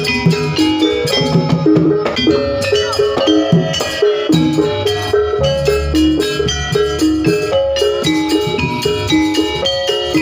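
Jaranan pegon music: a gamelan-style ensemble of metallophones plays short repeated note patterns over drums and heavy bass.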